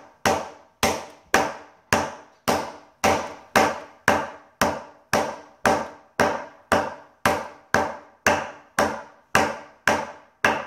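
Metal meat-tenderizer mallet pounding a sealed packet of black peppercorns on a granite countertop, crushing the peppercorns: a steady run of sharp strikes, about two a second, each with a short ring, stopping near the end.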